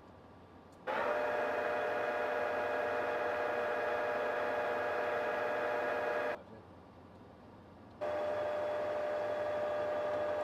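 Metal lathe running while turning an axle down, a steady machine whine of several tones from the motor and drive. It starts sharply about a second in, cuts off at about six seconds, and comes back about two seconds later.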